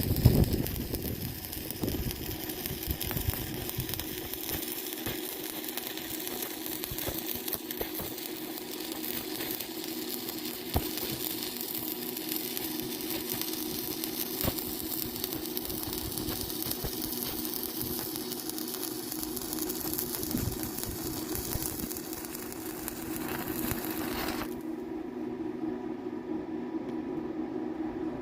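A power tool's motor running steadily, with a loud hiss of cutting or grinding on top that stops about 24 seconds in while the motor keeps running.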